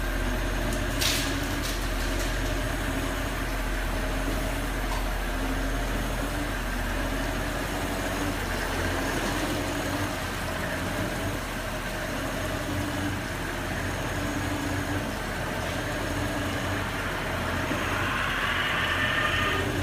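Car engine running at a steady idle, with a sharp click about a second in and a higher-pitched whine coming in near the end.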